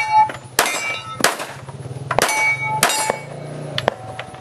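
A string of about five pistol shots over roughly three seconds, each followed by the ringing clang of struck steel targets, with a few lighter clicks near the end.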